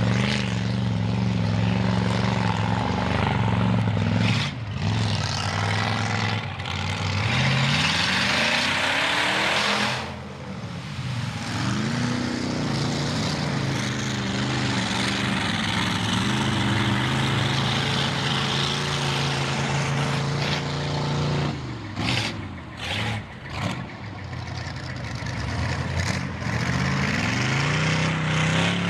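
Ford 460 big-block V8 of a mega mud truck running through open headers, revving hard with its pitch climbing three times, and easing off briefly in between.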